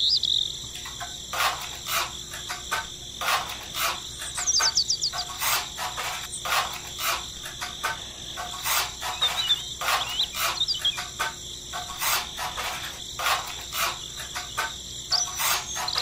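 Small hand trowel scraping and patting wet cement in short, irregular strokes, about one or two a second. Steady cricket chirping runs underneath, with a few brief bird-like chirps.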